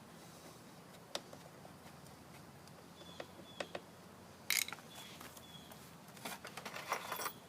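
Scattered light clicks and knocks of hands working on a lawn mower, with a brief scraping rustle about four and a half seconds in.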